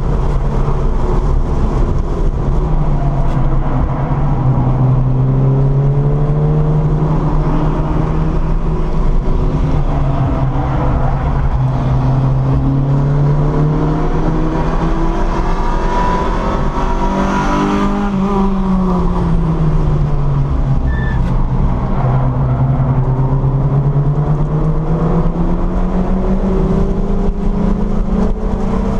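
VW Scirocco's engine heard from inside the cabin at track pace, its pitch climbing and dropping several times as the car accelerates and eases off, over steady road and wind noise.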